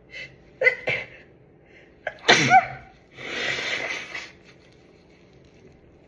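A woman sneezing with a cold: two short voiced gasps, then one loud voiced sneeze about two seconds in. It trails into about a second of breathy hiss.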